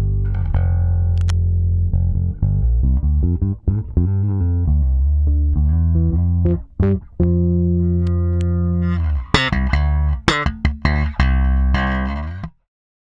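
Fender Jaguar Bass (made in Japan) played solo: a line of sustained, deep electric bass notes, then from about nine seconds in sharp, snapping slapped notes. The playing stops abruptly shortly before the end.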